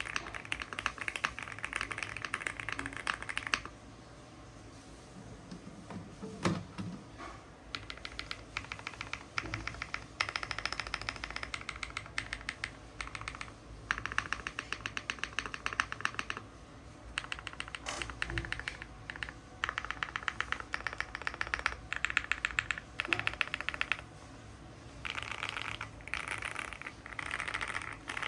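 Nut65 mechanical keyboard with lubed Gateron Box Ink Black linear switches, an FR4 plate, foam and tape mods, and PBT Cherry-profile keycaps, typed on in fast runs of keystrokes a few seconds long with short pauses between, and now and then a single heavier keystroke.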